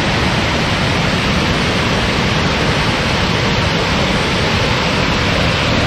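Dam spillway with its gates open: water pouring down the spillway, a loud, steady rush.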